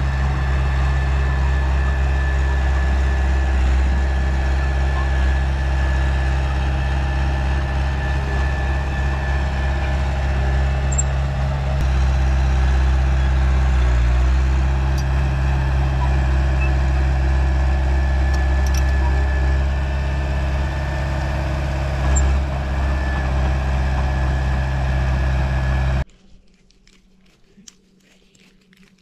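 Komatsu D31 bulldozer's diesel engine running steadily as the dozer pushes dirt, a deep, even drone. It cuts off abruptly near the end, leaving only a few faint clicks.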